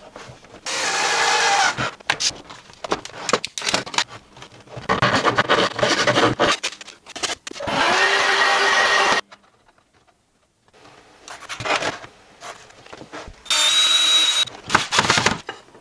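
Workbench tool sounds. A handheld cordless vacuum cleaner runs in short bursts that switch on and off sharply, with wood scraping and knocking in between. Near the end a cordless drill spins briefly with a high whine.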